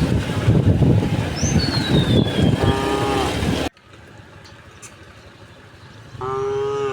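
Loud rumbling noise with a high bird chirp, cutting off suddenly past the halfway point. It gives way to quiet, and then a cow moos once, briefly and steadily, near the end.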